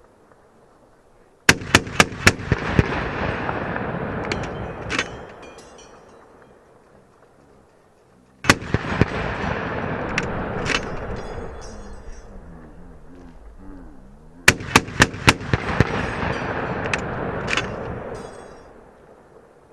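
M2 .50 caliber heavy machine gun firing three short bursts of a few rounds each, about six seconds apart. Each burst is followed by a long rolling echo that fades over several seconds.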